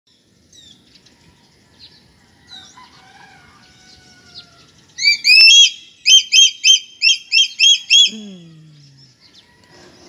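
White-bellied sea eagle calling: a loud run of about ten sharp, high yelping notes from about five to eight seconds in, the first two longer and the rest quick and evenly spaced. Small birds chirp faintly before it, and a short low falling sound follows the call.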